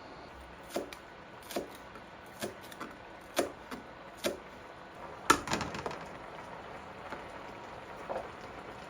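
Knife chopping on a cutting board in slow, single strokes about one a second, then a quicker run of louder cuts about five seconds in.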